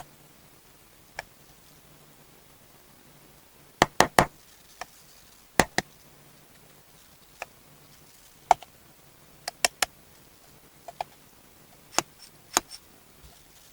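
Small hard plastic toy pieces being handled and set down, giving irregular sharp clicks and taps, some in quick groups of two or three, over a quiet background.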